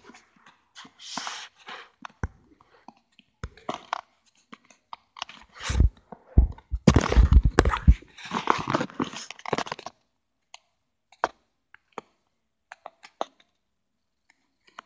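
A small dog mouthing and tugging a fabric toy on carpet: irregular rustling, chewing and scuffling sounds, mixed with rubs and thumps from a phone handled right against the dog. The sounds come in dense bursts for about the first ten seconds, then thin out to a few scattered clicks.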